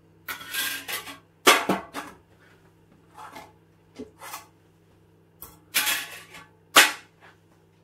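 Kitchen things clattering and knocking as they are handled and dropped: a scrape near the start, then a string of sharp hits, the loudest about a second and a half in and again near the end.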